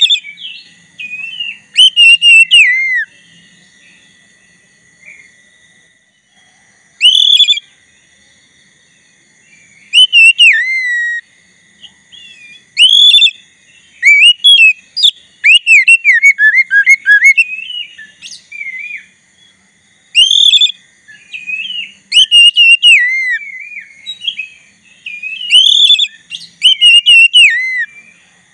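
Black-bellied oriental magpie-robin (kacer dada hitam) singing in full voice: loud whistled phrases with swooping rising and falling notes, in about nine bursts separated by short pauses. A faint steady high buzz runs beneath.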